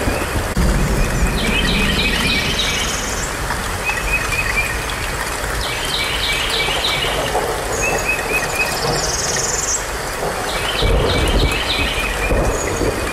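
Birds chirping over a steady rain-like hiss: a short run of chirps followed by a rising trill, repeating about every four and a half seconds like a looped nature-sound track.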